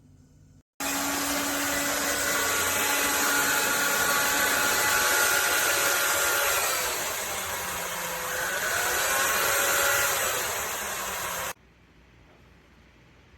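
Electrolux Ergorapido cordless stick vacuum's motor running with a steady rush of air and a whine that wavers in pitch partway through, switching on suddenly about a second in and cutting off sharply near the end.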